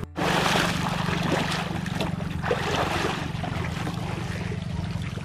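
Water splashing and sloshing as a person swims and hauls himself out of the water, with several louder surges of splashing, over a steady low drone. The sound drops out for a moment at the very start.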